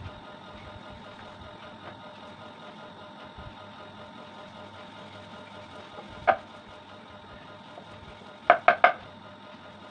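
Wood knocking on wood as roti dough is rolled out on a round wooden board with a wooden rolling pin: one sharp knock about six seconds in, then three quick knocks a couple of seconds later, over a faint steady hum.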